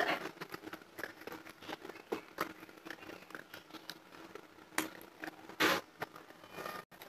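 Close-miked chewing of a dry, crumbly mouthful: a run of small crackling crunches, with two louder crunches near the end.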